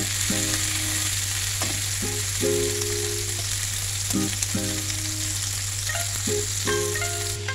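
Chicken leg quarters sizzling as they brown in hot oil in a frying pan, a steady crackling hiss. Soft background music of short held notes plays over it.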